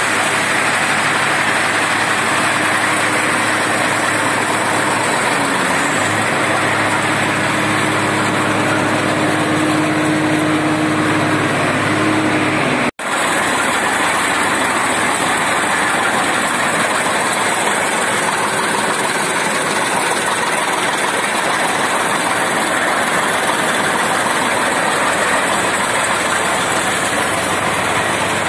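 Tractor engine running steadily, driving a PTO chaff cutter whose enclosed flywheel blades spin and chop fodder, a loud continuous mechanical din. The sound drops out for an instant about halfway through, then continues.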